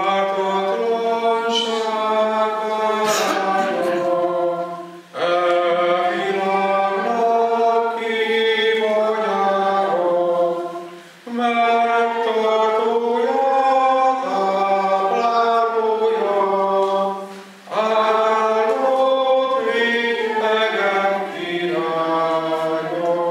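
A Reformed church hymn sung unaccompanied: a man's voice through a microphone leads, and the audience joins in. It comes in four long phrases of about six seconds each, with short breaths between them.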